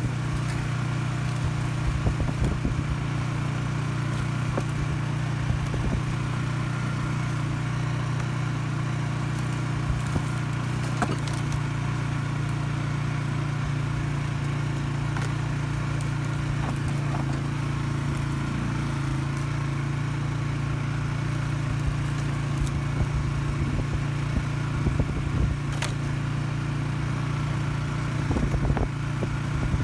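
Polaris Sportsman 570 ATV's single-cylinder engine running at a steady low speed on a dirt trail, its pitch barely changing, with occasional brief clicks and knocks.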